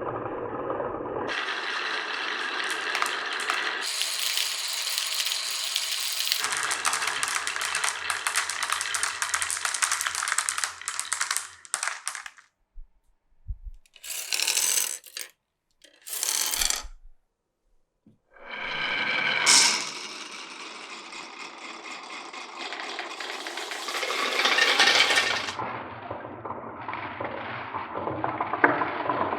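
Many glass marbles rolling and clattering along wooden and plastic marble-run tracks, a dense rattle that changes character abruptly several times. About halfway through it drops away for a few seconds, broken by two short rolls, then a sharp click and the rattling resumes.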